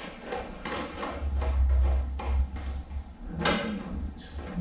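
A series of knocks and clunks, like parts or tools being handled, over a low rumble that swells in the middle, with one sharp, louder knock about three and a half seconds in.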